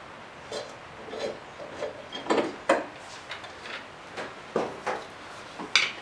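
Irregular metal clicks, knocks and scrapes as a lawn mower blade and its bolt are handled and fitted by hand, with a few louder knocks about two and a half seconds in and near four and a half seconds.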